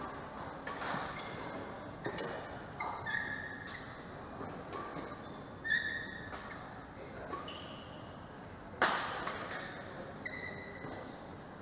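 Badminton rally: several sharp cracks of rackets striking the shuttlecock, the loudest about nine seconds in, with short high squeaks of court shoes on the floor mat between shots, echoing in a large hall.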